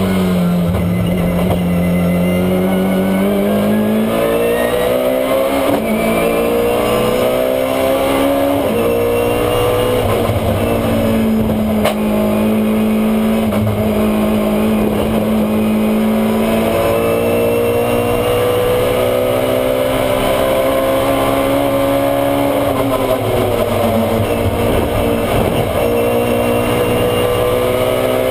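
BMW E90 Super2000 race car's 2.0-litre four-cylinder engine heard from inside the cockpit at racing speed. The engine note climbs, drops back and climbs again several times as the car accelerates, shifts and slows for corners, and holds steady for a few seconds near the middle.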